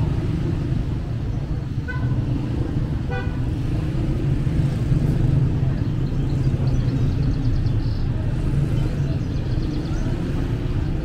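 Street traffic: a steady low rumble of passing cars, with two short car-horn toots about two and three seconds in.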